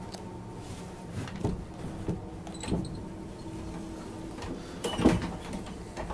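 Téoz intercity passenger coach running with a steady low rumble, while the push-button powered door between carriages opens: a steady mechanism hum for about two seconds mid-way, with a few clicks, then a louder clatter about five seconds in.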